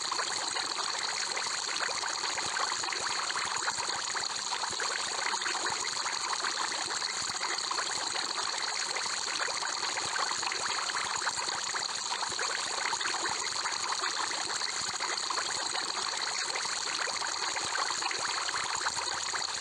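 Aquarium air bubbler: a steady, even wash of bubbling water with a fine continuous crackle of small bubbles.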